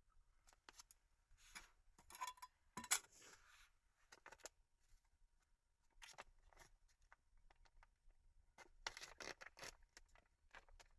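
Quiet handling noises: scattered rustles and soft clicks, with a single sharp knock about three seconds in and a burst of rustling near the end.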